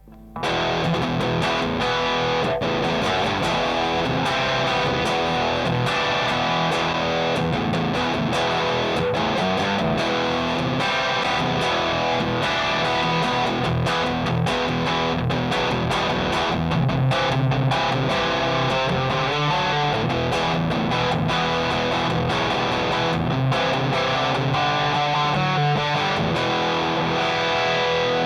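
Electric guitar played with heavy distortion through a Rullywow Plexicruise, a Marshall-voiced distortion pedal, strumming chords and riffs at a steady loudness.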